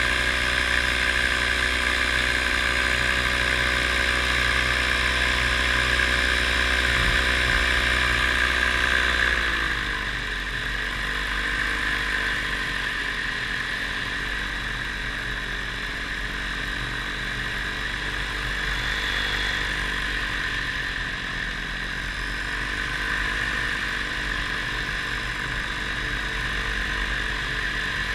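Paramotor engine and propeller running steadily in flight. About ten seconds in, the pitch drops as the throttle is eased back, and it carries on at lower revs.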